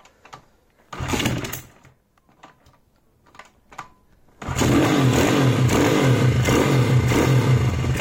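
YCF SP1 150 pit bike's four-stroke single-cylinder engine, fitted with a new Keihin PE28 carburettor, fires briefly about a second in and dies, then catches about four and a half seconds in and keeps running. It is on choke and does not yet hold a proper idle, as the untuned carburettor still needs its idle set.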